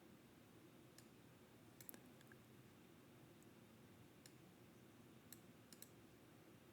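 Near silence, with a handful of faint, sharp clicks scattered irregularly through it, two or three of them in quick pairs.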